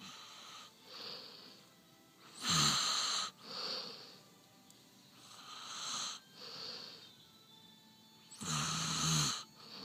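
A man snoring loudly in his sleep: two long snores about six seconds apart, each lasting about a second, with softer breaths between them.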